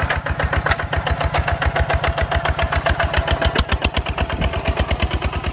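Walking tractor engine running steadily, with a rapid, even chugging beat.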